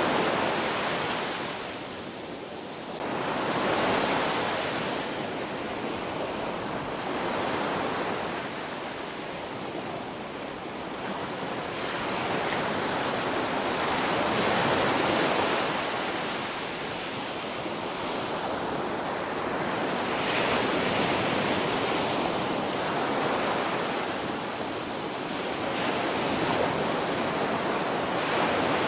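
Ocean waves breaking on a beach, a continuous wash of surf that swells and falls back every few seconds.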